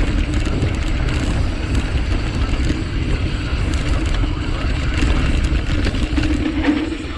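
Mountain bike riding fast down a dirt and gravel trail: steady wind buffeting on the handlebar-mounted microphone, with the tyres rolling over loose ground and the bike rattling over bumps.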